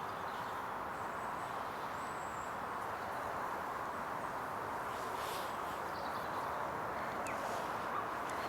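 Steady outdoor background hiss with no distinct event.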